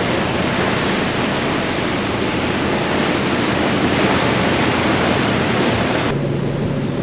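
Loud, steady rushing and churning of a ferry's propeller wash foaming astern, with the low hum of the ship's engines underneath. About six seconds in, the rushing falls away and a steadier engine hum takes over.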